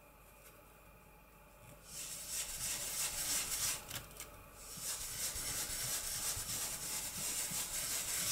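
Foam ink blending tool rubbing ink through a plastic stencil onto paper: a dry scrubbing hiss that starts about two seconds in, drops out briefly around the middle, then goes on.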